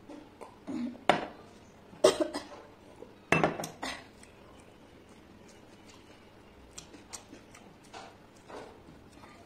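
Stainless steel tumbler and plate clanking: three sharp clusters of knocks in the first four seconds, then faint clicks and scrapes of fingers mixing rice on the steel plate.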